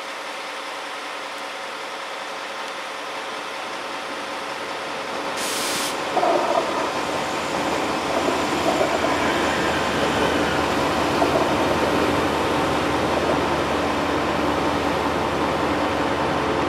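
Red 'vareo' diesel multiple unit (Alstom Coradia LINT) running past along the station tracks. Its running noise grows louder after about six seconds and then stays steady. A short hiss of air comes about five seconds in.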